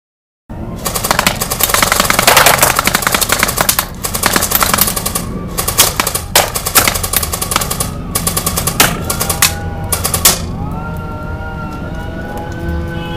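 CYMA AK74 electric airsoft rifle firing rapid full-auto bursts, then a few single shots and a short burst, over background music. A wailing, siren-like tone comes in near the end.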